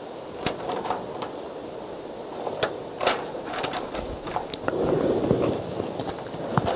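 Sheets of paper being handled and shuffled on a desk, with rustling and scattered light clicks and knocks; the rustling gets louder near the end.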